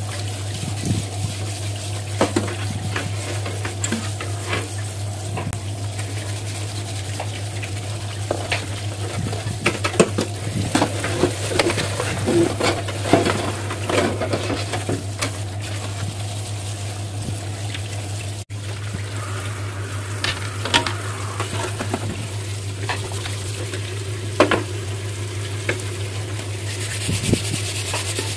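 Kitchen faucet spraying water onto a metal LED lamp housing in a stainless steel sink while it is scrubbed with a sponge, with frequent knocks and scrapes of metal against the sink. A steady low hum runs underneath.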